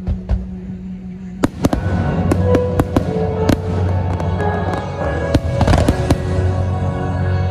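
Aerial firework shells bursting overhead: a few light pops at first, then from about a second and a half in a rapid, irregular series of sharp bangs. A show soundtrack with sustained chords plays steadily underneath.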